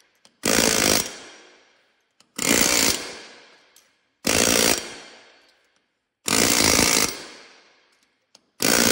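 Pneumatic air hammer rattling in five short bursts about two seconds apart, each fading in a ringing tail, as it drives an oven-heated tapered roller bearing down a John Deere 8420's 120 mm steel axle shaft.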